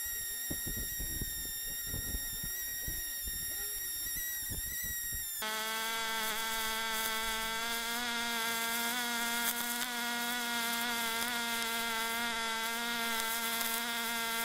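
Pulsed MIG welding arc from a Fronius TPS 400i running on its pulse setting: a steady buzz with a hiss. About five seconds in it changes abruptly to a lower-pitched, fuller buzz.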